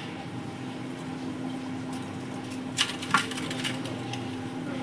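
Knife cutting through raw peeled potatoes and knocking on a steel plate, with a few sharp clicks clustered about three seconds in. A steady low hum runs underneath.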